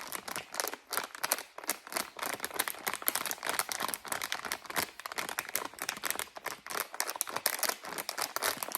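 Crinkly plastic candy packaging being handled and turned over in the hands, giving a dense, continuous run of small crackles.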